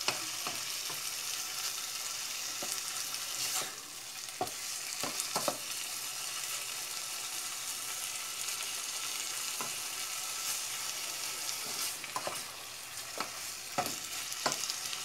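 Diced tilapia fillets sautéing in oil in a non-stick pot: a steady sizzle, with a wooden spoon stirring and knocking against the pot now and then.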